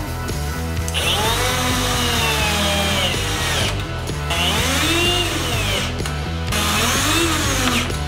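Power drill driving screws into the metal base plate of a spring-bolt latch, running in three bursts whose pitch rises and then falls as the motor speeds up and slows down. Background music plays with a steady beat.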